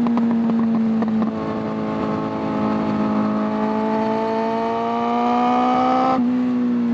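Suzuki Bandit 600's carburetted inline-four engine on the move. From about a second in, the note climbs slowly as the bike accelerates under light throttle, then drops back suddenly near the end.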